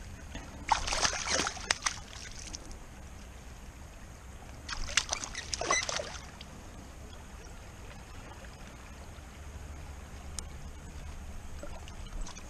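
A caught fish splashing in shallow river water as it is held and released by hand: two short bursts of splashing, about a second in and again around five seconds in, over the steady low rush of the river.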